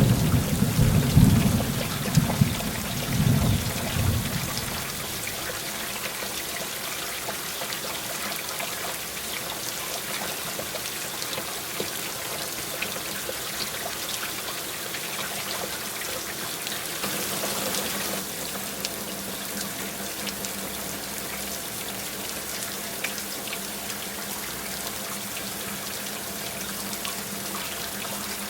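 Heavy rain falling steadily, a dense hiss with scattered drop ticks. A rumble of thunder fills the first few seconds and dies away.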